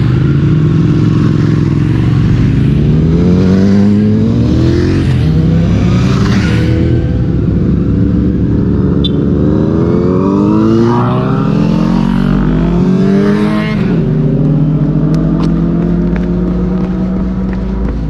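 Kawasaki ZX-10R inline-four with an Akrapovic full exhaust, heard onboard, accelerating hard. Its note rises in pitch about four times, dropping between rises as it shifts up, then holds a steady pitch for the last few seconds.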